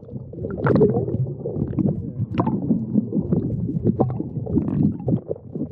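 Muffled underwater rumbling and gurgling of water rushing around a submerged action camera, with scattered sharp clicks and knocks.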